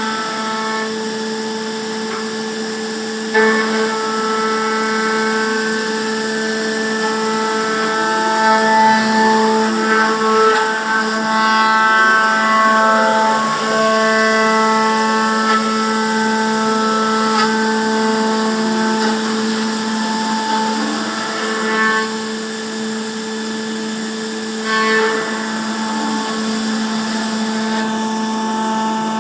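METROM P1000 pentapod machining center milling: a steady whine from the spindle and cutter, made of several even tones, with a brief louder knock about three seconds in.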